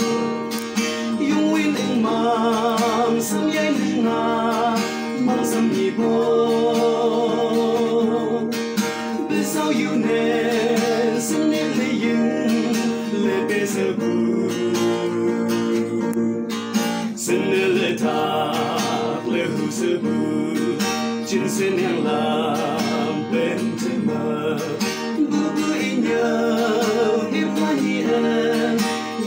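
Singing voices accompanied by a strummed acoustic guitar, a steady song throughout.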